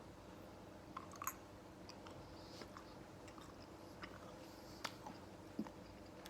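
Faint chewing of sweets, with a handful of soft scattered mouth clicks over a low room hum.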